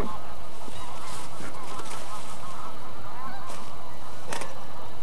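Geese honking, many overlapping calls from a flock in the background over a steady hiss. A single sharp click comes about four seconds in.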